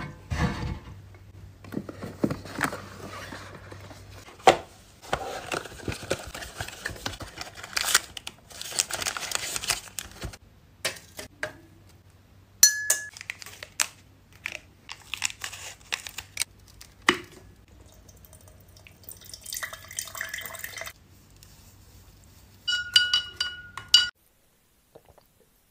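Glassware and drink-making handling sounds: clinks, taps and rustles, with liquid sounds. Near the end a metal spoon stirs in a drinking glass and rings against its side several times.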